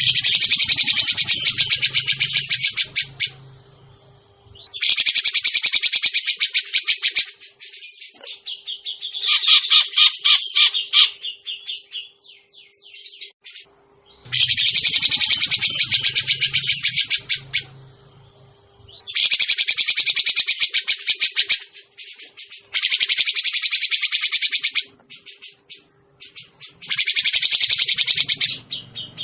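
Grey-cheeked bulbul (cucak jenggot) lure recording: the bird's call repeats as bursts of very rapid, harsh chattering, each two to three seconds long, separated by short pauses of one to two seconds.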